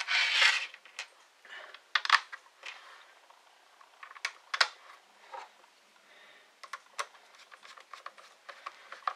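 Light clicks and clatter of small screws being handled and fitted into a Ridgid X2 drill's plastic housing, with a short rustle at the start and a run of quick, light clicks near the end.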